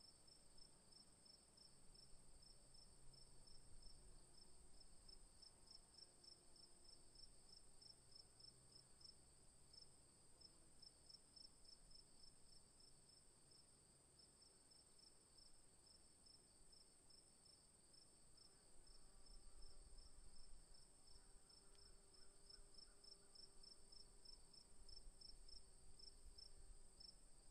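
Near silence, with faint insect chirping: a steady high whine and a rapid, even high pulsing.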